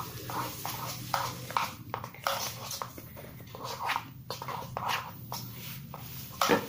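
Metal spoon stirring a thick homemade slime mixture of glue and lotion in a ceramic bowl: irregular scraping strokes against the bowl, with a louder knock near the end.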